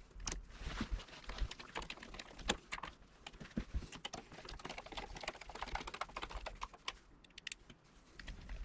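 Irregular small clicks, taps and rattles of metal door-latch parts being handled and fitted by hand.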